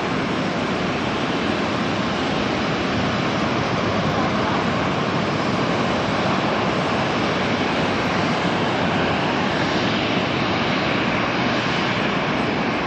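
Jet engines of a twin-engine narrowbody airliner running at high thrust during its takeoff roll: a steady, even rushing jet noise.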